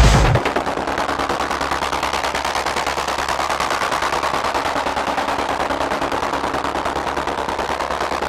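Closing section of a techno track: the kick drum and bass cut out about half a second in, leaving a dense, rapid, evenly pulsing rattle of noise, like machine-gun fire, over a faint low drone.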